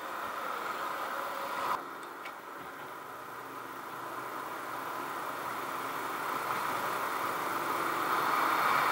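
Road traffic on the adjacent street, mixed with wind rush on the action camera's microphone while cycling, growing steadily louder toward the end.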